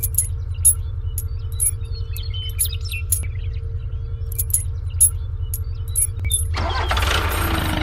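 Small metal chain clinking and jingling in short clicks as it is hooked between two toy tractors, over a steady low pulsing rumble. About six and a half seconds in, a louder, noisier engine-like sound begins.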